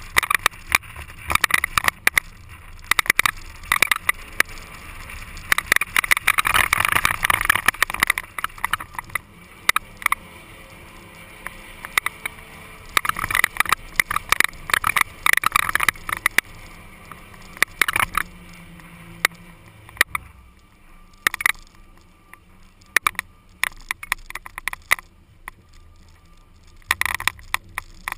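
SUV driving over desert sand, heard through a camera mounted outside on the vehicle's side: wind rushing past the microphone, with many sharp clicks and knocks. The noise dies down for several seconds before picking up again near the end.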